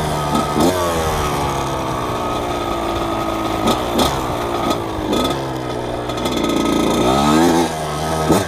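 1998 Kawasaki KX80's 80cc two-stroke single-cylinder engine revving up and down repeatedly as the dirt bike is ridden, with a sharp climb in revs about seven seconds in and a quick blip of the throttle just before the end.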